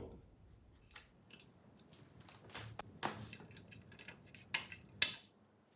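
Small metallic clicks and light scraping as screws are hand-tightened into a sewing machine's metal belt guard, with a few sharp clicks, the loudest two about four and a half and five seconds in.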